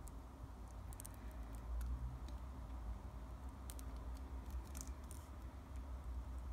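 Ballpoint pen drawing on paper: faint scratches and light ticks in short strokes, clustered about a second in, near four seconds and near five seconds, over a low steady rumble.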